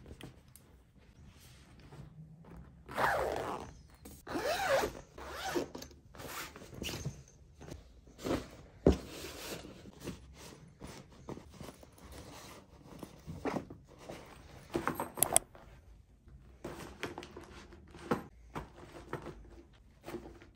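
A zipper being pulled in several short runs, the loudest a few seconds in, with fabric rustling and a few soft knocks and clicks as items are packed into a suitcase.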